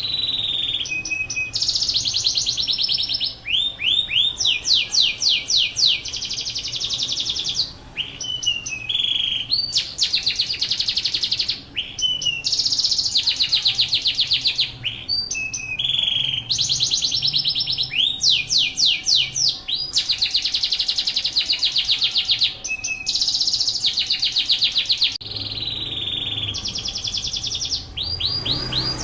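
Yorkshire canary singing continuously, its song made of rapid trilled rolls: each phrase a fast run of the same high note repeated, changing to a new roll every second or two with short breaks between.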